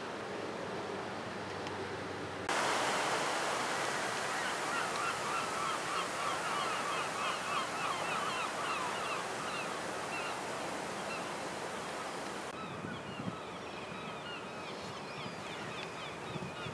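A flock of birds calling, many short calls in quick succession, thickest in the middle and thinning out toward the end. Under them runs a steady rushing noise that cuts in suddenly a couple of seconds in and cuts out suddenly about four seconds before the end.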